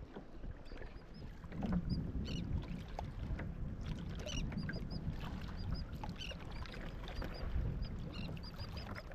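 Water sloshing against a plastic fishing kayak's hull, with seabirds overhead giving many short, high chirping calls.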